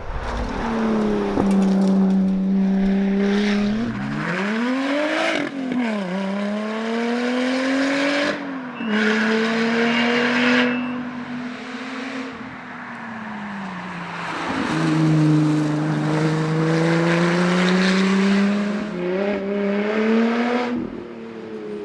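Lotus Exige Sport 350's supercharged 3.5-litre V6 under hard acceleration on a tarmac rally stage. The revs climb and drop back several times through gear changes, and ease off briefly about two-thirds of the way through before pulling hard again.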